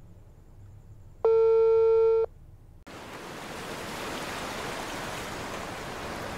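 A single telephone tone, one steady beep lasting about a second, heard on the phone line as the call ends or the line is busy. It is followed by a sudden switch to a steady rushing noise of wind and surf that slowly grows louder.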